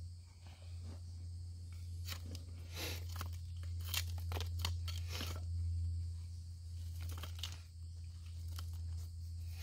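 Crunching and scraping of dirt and loose rock as a hand tool and fingers dig into a soil bank, in a run of short strokes from about two seconds in and a few more near the end, over a steady low hum.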